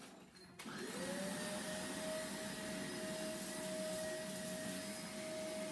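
Vacuum cleaner switched on about half a second in, its motor whine rising quickly and then holding steady over a hiss of rushing air.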